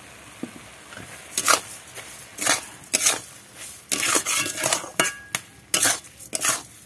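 Metal spatula scraping and stirring in a metal kadai, mixing sugar into grated carrot simmering in milk. The scrapes start about a second and a half in and come faster and closer together in the second half.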